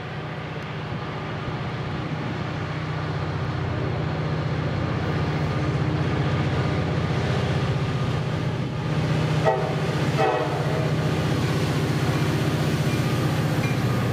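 Two EMD SD40-2 diesel locomotives, each with a 16-cylinder two-stroke engine, approaching under power. Their roar grows louder as they near. Two short horn blasts come about two-thirds of the way through.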